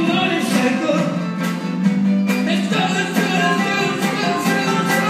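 Live band playing, with strummed guitars over drums, heard from far back in a large hall.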